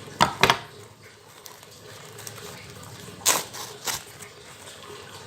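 Wrapping being handled and opened by hand: two quick crackles about a quarter and half a second in, then two more a little after three seconds and near four seconds.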